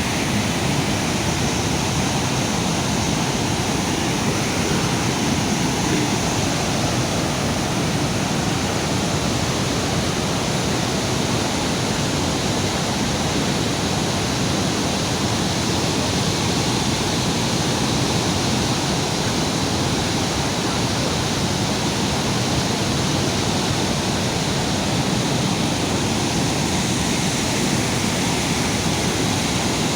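Floodwater rushing steadily, a continuous even noise of running water with no breaks.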